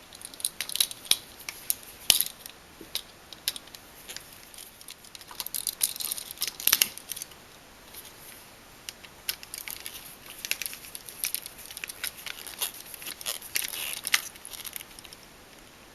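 Scattered small clicks, scrapes and rustles of copper wire being hooked around a wall outlet's screw terminals and the terminal screws being tightened by hand.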